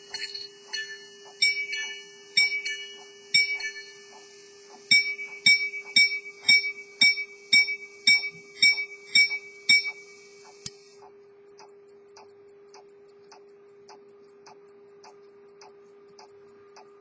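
Edmond Mathey-Tissot minute repeater pocket watch striking the time on its gongs. A few ringing strikes are followed by a run of paired strikes (the quarters), then about ten evenly spaced single strikes (the minutes), ending about 11 seconds in. After that only the watch's movement is heard ticking, over a faint steady hum.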